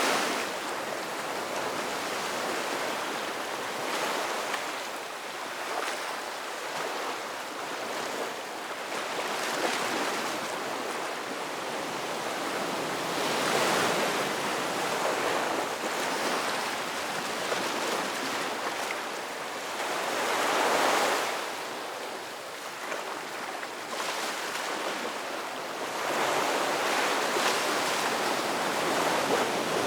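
Ocean waves breaking and washing on the shore, a steady hiss of surf with a wave swelling louder about every six or seven seconds.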